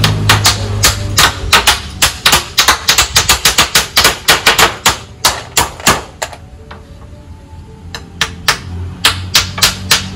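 Two hammers nailing split bamboo slats lying on a concrete floor: quick, overlapping sharp taps for about six seconds, then slower, scattered strikes.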